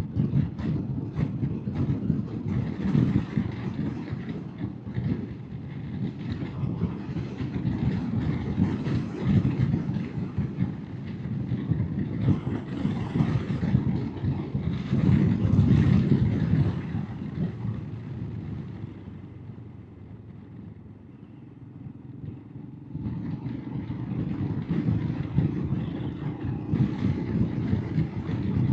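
Royal Enfield Himalayan motorcycle engine running under way, a rough low drone that eases off for a few seconds past the middle and then picks up again.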